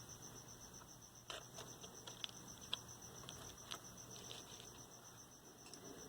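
Small plastic clicks and taps as control knobs are pushed back onto a transistor radio's shafts, a scatter of them over a few seconds. A faint, steady, fast-pulsing high tone runs underneath.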